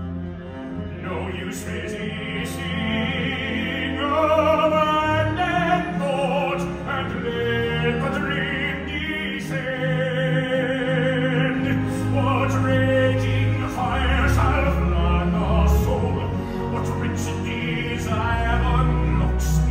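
Musical-theatre singing in an operatic style: a solo voice sings sustained phrases with wide vibrato over a pit orchestra, live in a theatre.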